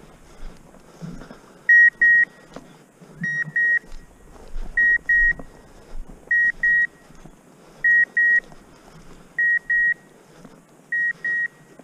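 Hunting dog's beeper collar sounding in a steady rhythm of electronic double beeps, one pair about every second and a half, the pattern of a collar in point mode while the dog holds point on quail. Under it is the soft rustle of footsteps through tall weeds.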